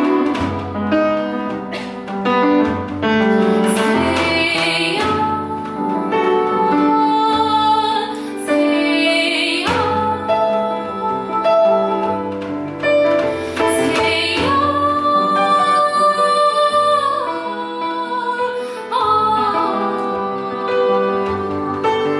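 Live song performance: a woman singing a slow melody over piano, electronic sounds and percussion, holding one long note about two-thirds of the way through.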